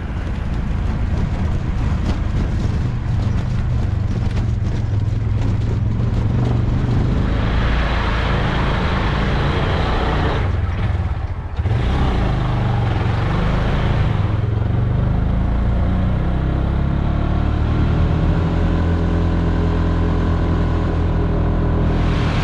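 Small motor vehicle's engine running steadily under way, loud and close. About eleven seconds in it drops off briefly, then pulls again.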